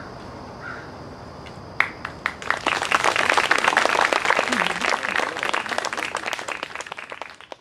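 Audience applauding: a few separate claps about two seconds in, then dense clapping that thins out and fades near the end.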